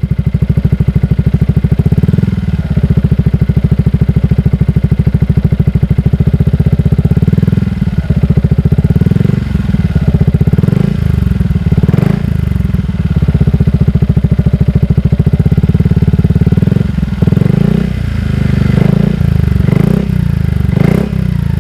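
Motorcycle engine running through a Shijiro Racing aftermarket exhaust in a sound test, mostly at a steady idle with a few short throttle blips, more of them near the end.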